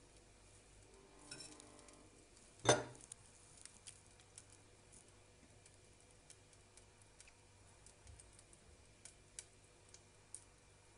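Butter melting in hot oil in a steel pan, giving a faint crackle of scattered small pops and ticks. A single sharp knock about three seconds in stands out above the rest.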